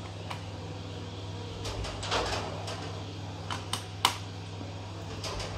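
Screwdriver and small screws clicking and scraping against the plastic casing of an HP ProBook 440 G5 laptop as the keyboard's retaining screws are refitted, in scattered short clicks with a brief scrape about two seconds in and a sharp click, the loudest, just after four seconds. A steady low hum runs underneath.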